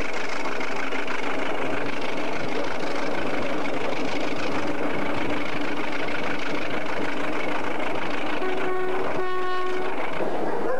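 Passenger train running, with steady rolling noise heard from an open coach window. Near the end the General Electric U12 diesel locomotive's horn sounds two short blasts, the second a little longer.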